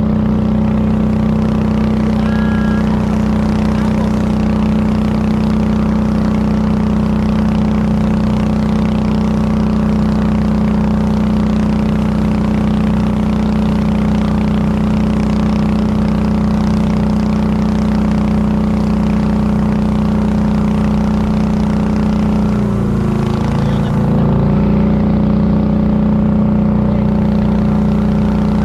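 Motorboat engine running steadily under way. About 23 seconds in, its pitch dips briefly and then comes back up.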